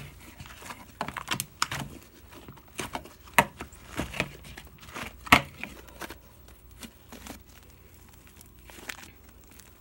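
Fluffy shaving-cream slime being squeezed and kneaded by hand, giving irregular crackling clicks and snaps, the two loudest about three and a half and just over five seconds in.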